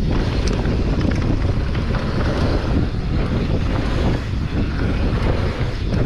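Steady wind noise on the microphone of a mountain bike ridden down a trail, with a few small knocks from the bike.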